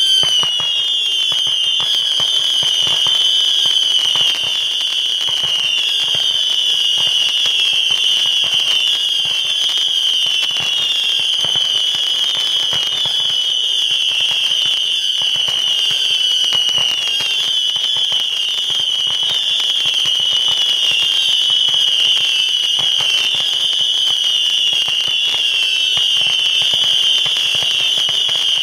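Weco Art. 1690 'Sound Attack' firework burning: one continuous shrill whistle whose pitch wavers slightly, with dense crackling throughout.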